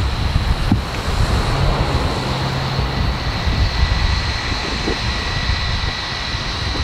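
Engines of an aircraft on approach droning steadily, heard under wind buffeting the microphone and the wash of surf.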